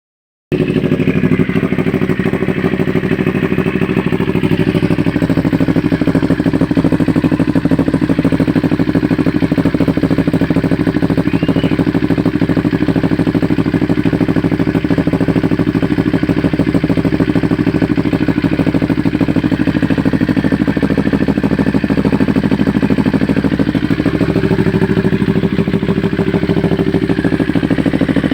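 Motorcycle engine idling steadily through an aftermarket SC-style exhaust and mid pipe, with a fast, even exhaust pulse. It starts about half a second in and holds the same pitch throughout.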